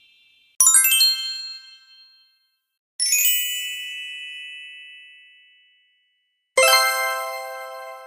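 Three separate sparkle sound effects, each a quick glittering run of high bell-like tones that rings on and fades away; the first is short, the second rings longer, and the third, near the end, is fuller with lower tones.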